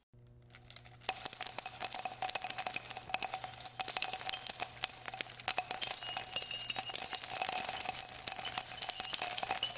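Jingle bells shaking continuously in a short outro music sting over a steady low hum. It starts about a second in.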